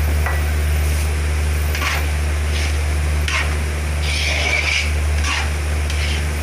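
Metal ladle stirring and scraping thick palabok sauce in a large aluminium pan, with a few scrapes about two, three and a half, and four to five seconds in. Under it runs a loud, steady low hum.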